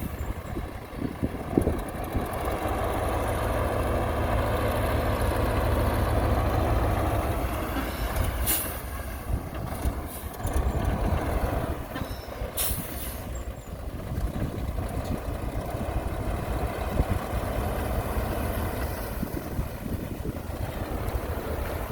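Heavy construction-machine diesel engine running, swelling louder for several seconds under load, then easing off, with two short high hisses partway through.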